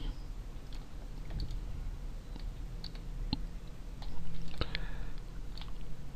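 Computer mouse clicking: scattered single clicks at an uneven pace as labels are dragged and resized, over a low steady hum.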